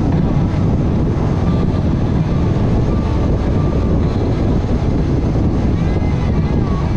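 Steady low rumble of a vehicle on the move, even in level throughout.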